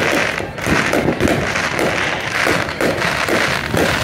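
Many fireworks going off at once: a dense, continuous barrage of pops and bangs with no pause.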